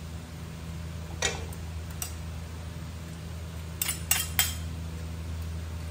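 Stainless-steel serving spoons clinking against an aluminium cooking pot as noodles are scooped out for a taste: a clink about a second in, another at two seconds, then three quick clinks close together near four seconds, over a steady low hum.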